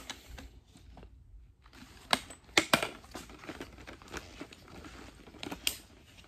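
Hard plastic parts of a toy double-bladed lightsaber being handled and pushed together: rustling and tapping with a few sharp clicks, the loudest about two to three seconds in and another past five seconds. A click is the sign that the blade has seated all the way in the hilt.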